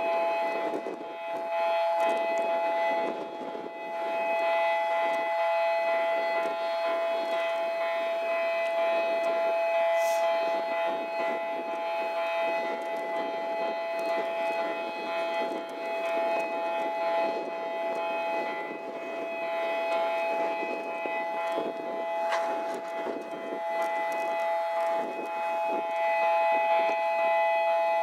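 Warning siren of a railway bascule bridge sounding a steady two-tone note while the span is lowered, with gusty wind rumbling on the microphone.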